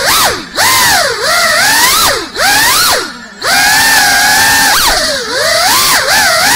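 Electric motors and propellers of a small FPV cinewhoop drone whining, the pitch sweeping up and down with the throttle. The whine dips and drops out briefly a few times as the throttle is cut, with a steadier stretch in the middle.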